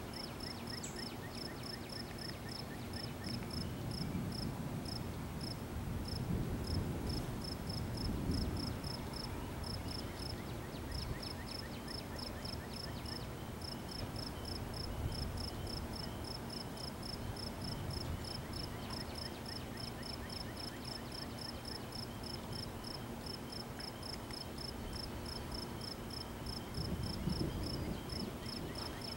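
Crickets chirping steadily, about four short high chirps a second, over a low rumbling that swells twice.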